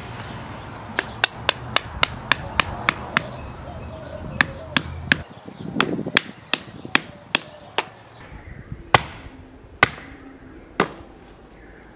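Claw hammer striking a bamboo stake to drive it into the soil. It makes a quick run of about nine sharp blows, about four a second, then another uneven run, slowing to a few single blows near the end.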